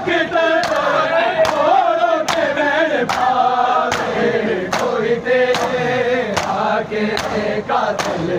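Crowd of men beating their chests in unison, a sharp slap about every 0.8 seconds, under a chorus of men chanting a Punjabi noha (mourning lament).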